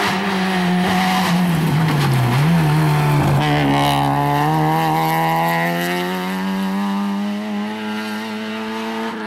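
Peugeot 206 rally car's engine dropping in revs as it brakes into a corner, a brief break for a gearchange about three and a half seconds in, then a long steady rise in revs as it accelerates hard out of the corner.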